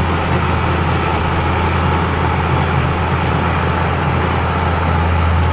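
New Holland D180 crawler bulldozer's diesel engine running steadily with a deep drone as the machine pushes a heap of dirt with its blade.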